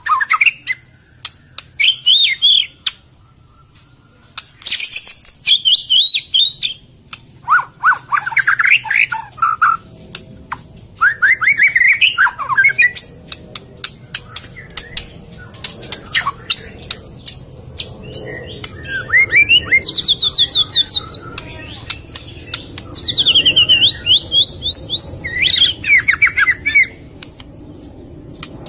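White-rumped shama singing: loud bursts of varied whistled and fast-trilled phrases every second or two, with many sharp clicking notes between them.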